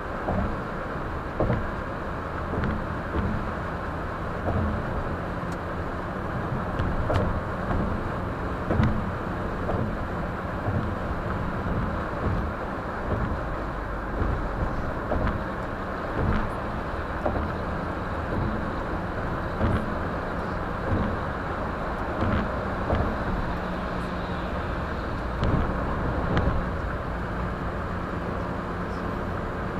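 Car driving on the road, heard through a dashcam inside the cabin: a steady rumble of tyre and engine noise, broken every second or two by short thumps.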